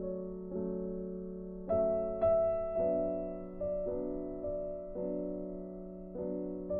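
Background piano music: slow, gentle chords struck about once a second and left to fade.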